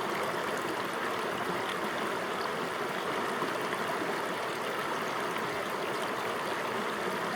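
Steady rush of flowing water, an even hiss without breaks or splashes.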